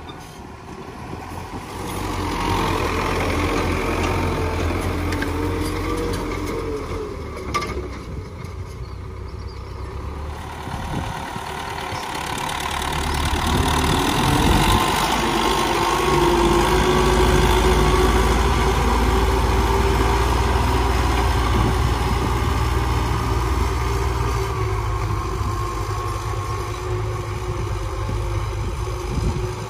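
Farm tractor engine running as it pulls a plow through the soil. The engine note drops briefly a little before halfway, then rises and holds steady and louder.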